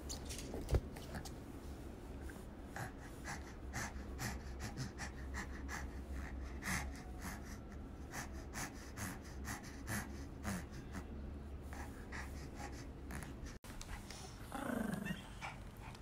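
Pomeranian gnawing and mouthing a ball held in a hand: rapid, irregular wet mouth clicks and smacks, with panting breaths. A short falling vocal sound comes near the end.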